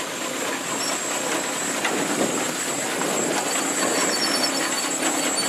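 Steam traction engine running as it drives off along a dirt track: a steady mechanical clatter with faint knocks.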